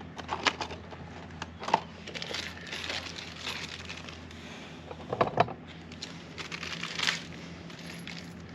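Scattered clicks and light clatter of hand tools and small hardware being handled, with a louder knock about five seconds in, over a faint steady hum.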